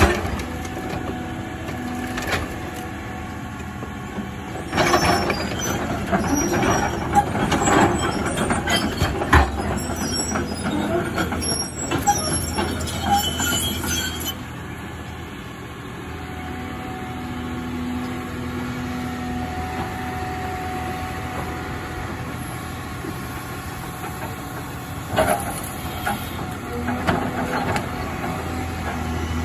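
Caterpillar 323 excavator's diesel engine and hydraulics running while its bucket tears into a metal-roofed building, with sheet metal and debris crashing and clattering through the first half. After that the engine and hydraulics run on more quietly with a whine, and a few clanks come near the end.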